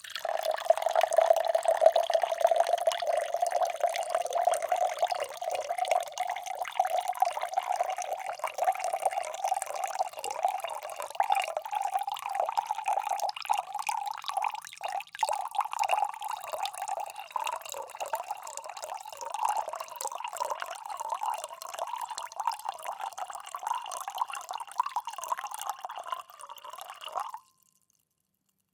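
A steady stream of water poured into a glass, splashing and gurgling, its ringing pitch rising slowly as the glass fills. It stops abruptly near the end.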